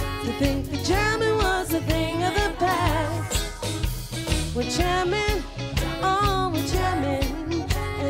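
A woman singing in wavering, gliding runs over a reggae band, with a steady bass line and drums.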